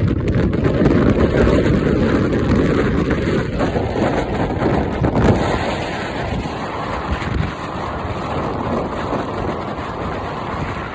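Storm wind buffeting the microphone in a heavy, low rumble, over the rush of surf breaking against the shore.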